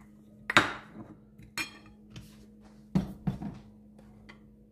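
Metal spoon clinking and scraping against a ceramic bowl of dry spice mix, a few sharp clinks with the loudest about half a second in. Around three seconds in there is a double knock as the bowl is set down on the wooden worktop.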